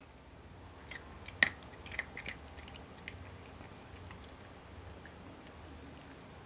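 A cat crunching dry kibble: a handful of sharp, crisp crunches in the first half, the loudest about a second and a half in, then only faint chewing.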